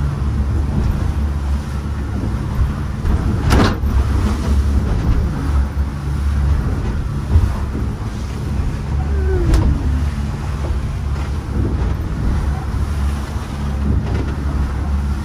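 Catamaran under way with its engine running in a steady low drone, water and wind rushing past. Two sharp knocks come about four and ten seconds in.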